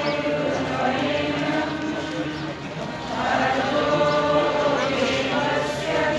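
Many voices chanting together in long, wavering held notes over crowd chatter, growing louder about halfway through.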